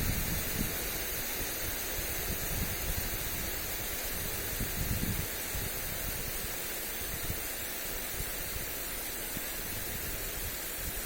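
Lawn sprinkler spraying water over grass: a steady, even hiss, with wind buffeting the microphone in low rumbles, most strongly about five seconds in.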